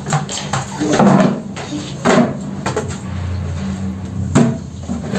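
Plastic buckets and a plastic basin being handled on a tiled floor, giving several knocks and clatters about a second apart.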